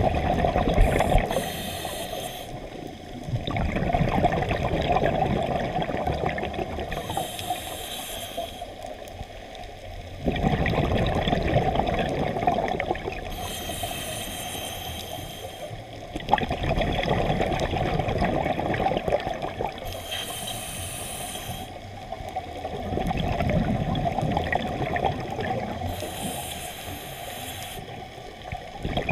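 Scuba diver breathing through a regulator underwater: a short hissing inhale about every six seconds, each followed by several seconds of rumbling exhaled bubbles, about five breaths in all.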